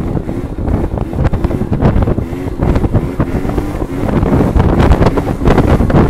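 Small two-stroke scooter engine held at high revs that waver up and down as the throttle is worked to hold a wheelie, under heavy wind buffeting on the microphone that grows louder in the second half.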